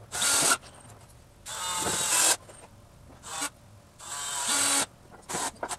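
Cordless drill driving screws into wood in about five short bursts of spinning, each a second or less, with pauses between.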